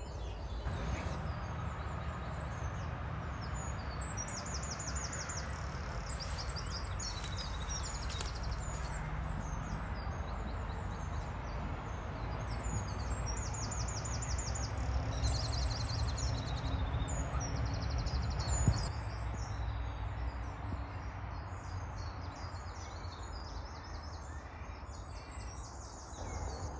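Birdsong in the dawn chorus: several birds singing high, rapid trills and repeated phrases over a steady low background rumble. A single sharp knock comes about two-thirds of the way through.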